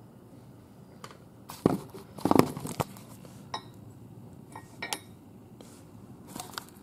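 Steel gearbox parts (shaft, bearing, gear) being handled and set down on a bench: a scattering of metal clinks and knocks, the loudest cluster about two seconds in.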